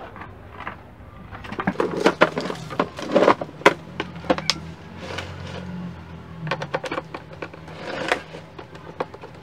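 Irregular clicks, knocks and light rattles of hands and tools working on a rice cooker's parts and wiring, busiest from about two to five seconds in and again near eight seconds.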